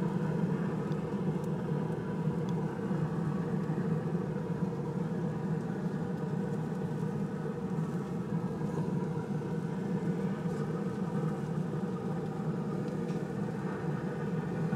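Pit Boss grill running with its flame open: a steady low rumble and hum of the fire and grill. A few faint light clicks come in as cheese slices are laid on the patties.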